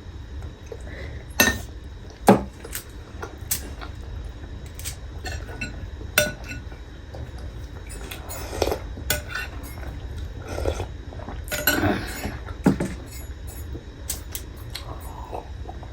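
Cutlery clinking against dishes in scattered sharp clicks, over a low steady hum.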